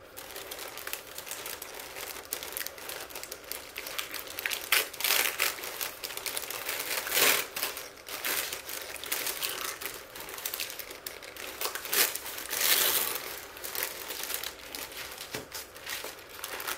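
Tissue paper rustling and crinkling as hands unwrap a package, in irregular handling sounds with several louder rustles along the way.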